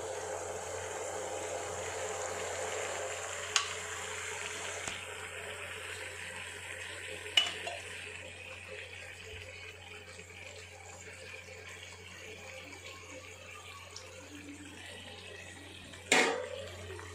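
Ginger pachadi's tamarind liquid simmering and sizzling in an iron kadai over a gas flame, a steady hiss that eases off after the first several seconds. A steel ladle clicks sharply against the pan twice and knocks louder near the end.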